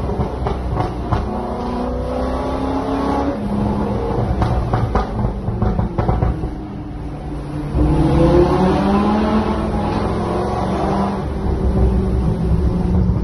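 Sports car engines, a Corvette C6 Z06 and a Lamborghini Huracán, revving and accelerating in a road tunnel, heard from inside the Corvette. The revs climb, fall back, then climb hard again about eight seconds in, with exhaust pops and crackles when the throttle is lifted.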